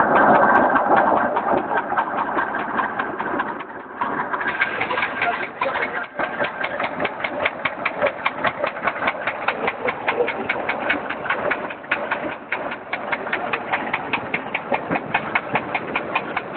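Reversible concrete drum mixer running: a steady machine noise with a regular clatter of about four to five beats a second, which becomes more distinct about four seconds in.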